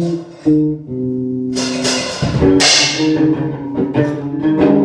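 Rock band warming up at a sound check: short guitar notes, then drums come in about a second and a half in with two loud crashes and a steady beat under the guitar.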